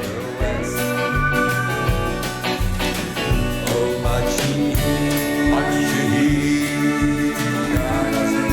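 Country band music in an instrumental passage: a steady drum beat under sustained guitar lines that slide in pitch.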